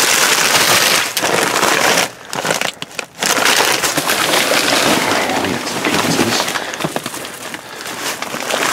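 Plastic bags and food packaging crinkling and rustling loudly as a hand rummages through them, with two short lulls about two and three seconds in.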